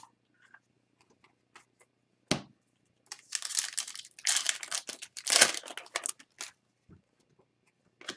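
A single sharp thump a little over two seconds in, then a 2021-22 Upper Deck Series 2 hockey card pack's foil wrapper torn open and crinkled for about three seconds.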